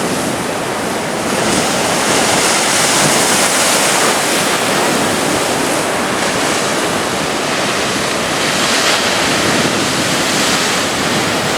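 Atlantic surf breaking and washing up the beach in a continuous rush, swelling about two seconds in and again near nine seconds as waves come in.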